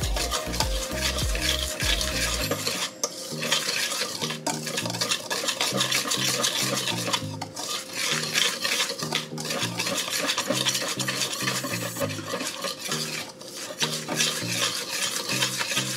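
A utensil stirring dry flour, sugar, baking powder and salt in a stainless steel mixing bowl, scraping and clinking against the metal, with brief pauses between bouts of stirring.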